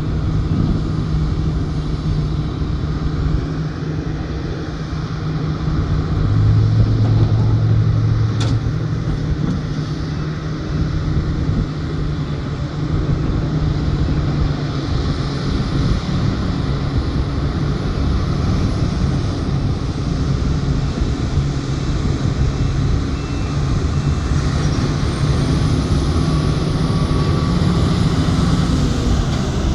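Large diesel engines of a Tata Hitachi 1200 mining excavator and a Komatsu HD785 haul truck running steadily during loading, with a deeper engine tone swelling for a few seconds about six seconds in and a single sharp click a little after eight seconds in.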